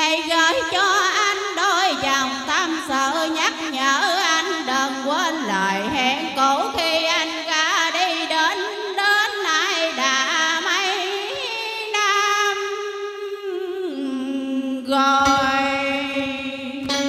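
A woman singing a Vietnamese tân cổ song into a microphone over a karaoke backing track, the melody wavering and gliding in ornamented turns. The music starts abruptly at the beginning, and the melody settles into steadier held notes near the end.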